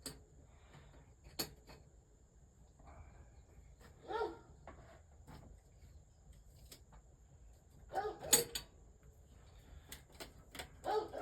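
A dog giving short barks about four seconds in, twice around eight seconds, and again near the end, with a few sharp clicks and taps in between.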